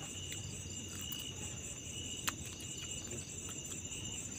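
Insects, crickets among them, chirping steadily in a high-pitched chorus, with one pulsing call repeating over it. A single short click comes a little past two seconds in.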